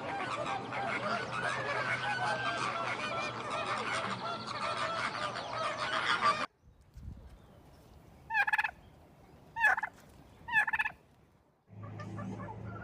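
A flock of turkeys calling over one another. After a cut, three separate gobbles come about a second apart.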